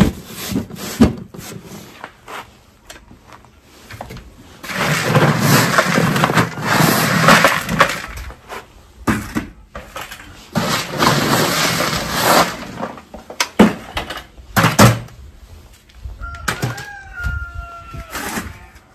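Feed pellets rattling as they are scooped and poured from galvanized metal feed cans into buckets, in two long pours, with scattered knocks and clanks of the metal cans, lids and buckets. A short wavering squeal comes near the end.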